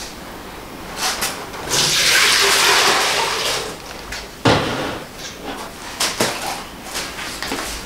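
Water running for about a second and a half, while hands mix flour and wet dough in a plastic basin with soft rustles; a sharp knock comes about halfway through.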